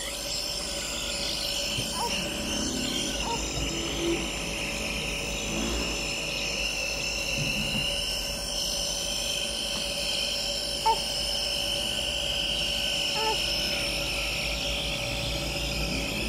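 Compressor nebuliser running with a steady, unbroken hum, with a short click about eleven seconds in.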